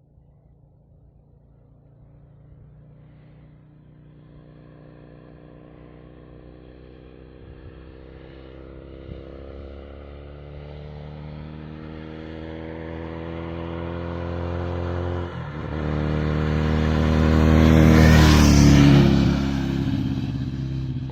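Rebuilt 1981 Kawasaki Z400 parallel-twin motorcycle engine running under way, growing steadily from faint to loud as the bike approaches, with a brief dip about 15 seconds in. It is loudest near the end, then eases off a little as it goes past.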